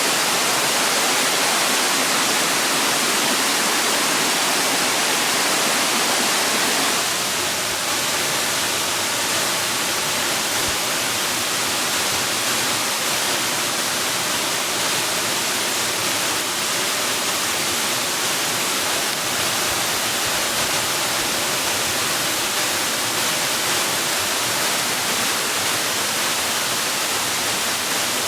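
Steady rushing water, a dense even hiss. Its tone shifts slightly and it gets a little quieter about seven seconds in.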